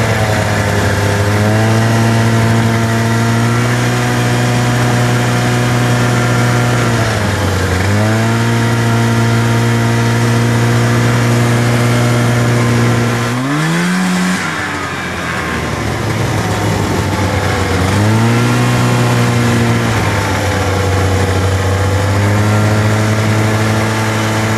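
Arctic Cat Puma 340 snowmobile's two-stroke engine running as the sled is ridden. It holds a steady note that dips briefly about seven seconds in, revs up sharply about halfway, falls away for a few seconds, picks back up, and dips again near the end.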